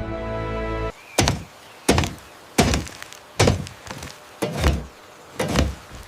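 Background music cuts off about a second in, followed by a steady series of heavy chopping thunks, about seven blows at roughly one every three quarters of a second.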